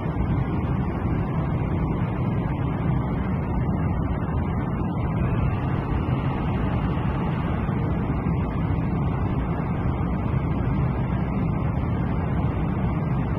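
Steady low roar of an airliner cabin: engine and airflow noise heard from inside the passenger cabin.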